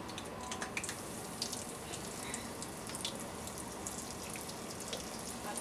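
Flour-dredged cube steak sizzling in hot oil in a skillet: a steady hiss with scattered small crackles and pops.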